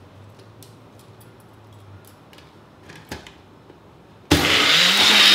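Small personal blender: a knock as the cup goes onto the base, then about four seconds in the motor starts suddenly and runs loudly, rising in pitch as it spins up, blending firm tofu.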